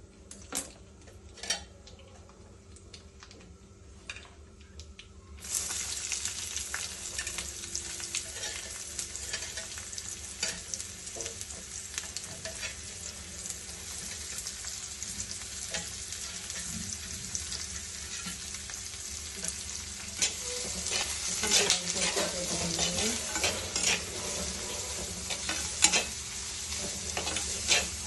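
Chopped onions frying in hot oil in a clay pot, the sizzle starting suddenly about five seconds in as they go into the oil, with a metal ladle clinking and scraping as they are stirred.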